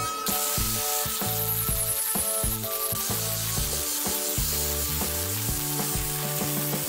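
Electric angle grinder with a sanding disc sanding a curved wooden handrail piece: a steady abrasive hiss that sets in about a quarter second in.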